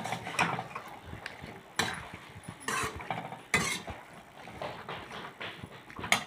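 Perforated metal ladle scraping and clinking against a metal kadhai as vegetables in oil are stirred, in irregular strokes with a few louder scrapes.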